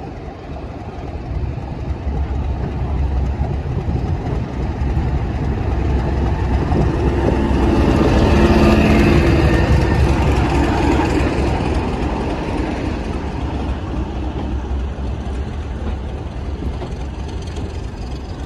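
Class 31 diesel locomotive's English Electric V12 engine running as it arrives, getting louder as it passes close by about halfway through, then the coaches' wheels rolling past on the rails.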